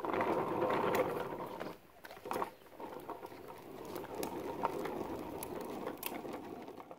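Hard plastic wheels of a toddler's ride-on toy motorbike rolling over asphalt, a steady rolling noise that drops out for about a second around two seconds in, with one short knock, then rolls on.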